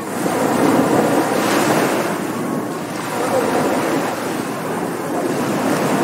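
Surf on a beach: waves breaking and washing up the sand in a steady rush, swelling louder twice, about a second in and again past the middle.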